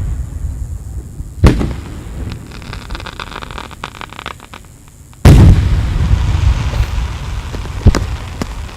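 Aerial fireworks going off: a sharp bang about a second and a half in, then a stretch of fast crackling. A loud, deep boom follows about five seconds in, with a rumble trailing after it, and another sharp bang comes near the end.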